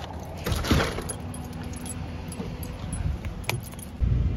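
Someone getting into a car: keys jingling and small clicks, with one louder thump about a second in. A low rumble comes up near the end.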